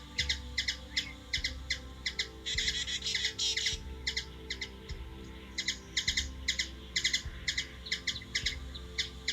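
Hummingbird chirping in short, rapidly repeated high chips, about three a second, with a denser flurry of chirps about two and a half seconds in.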